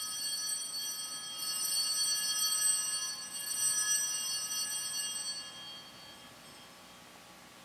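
Altar bells rung at the elevation of the host after the consecration: a cluster of small bells ringing, struck afresh about one and a half and three and a half seconds in, then dying away.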